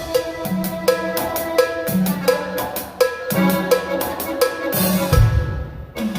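Drum kit played in a steady rhythm with sharp cymbal and drum strokes, over pitched instrumental music with a repeating low note, as the intro of a song. A deep low boom comes in about five seconds in.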